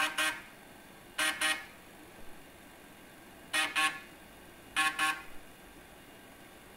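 Floppy drives and stepper motors buzzing out a melody as short pitched double stabs: four pairs of notes, the first two and last two about a second apart, with a longer gap between them.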